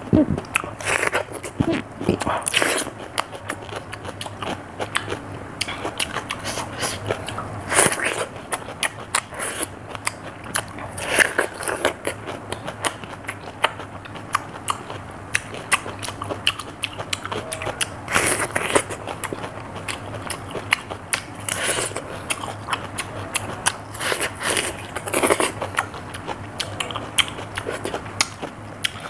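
A person eating raw cucumber: crisp bites and wet, crunchy chewing, with louder crunches every few seconds.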